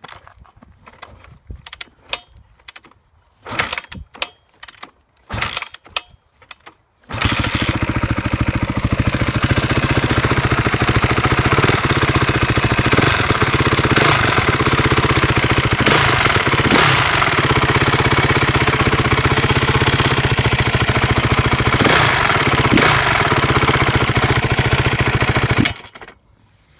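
2012 Honda CRF250 single-cylinder four-stroke engine: a few short bursts during start attempts, then it catches about seven seconds in and runs steadily with a ticking noise, until it is shut off abruptly near the end.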